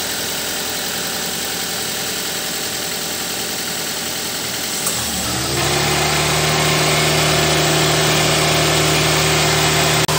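Toyota Avanza engine running steadily. About halfway through, the electric AC condenser fan motor switches on, spins up with a rising whine and settles into a loud, steady growl over the engine. The owner puts the growl down to dried lubricant on the fan motor's worn shaft.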